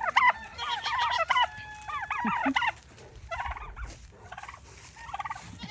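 Turkeys gobbling in a rapid string of overlapping calls for the first few seconds, then in shorter bursts twice more.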